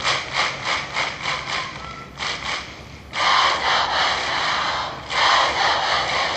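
A large crowd of students in a grandstand clapping fast and in time, about four claps a second. About three seconds in, the crowd breaks into a loud massed shout that dips briefly and then swells again.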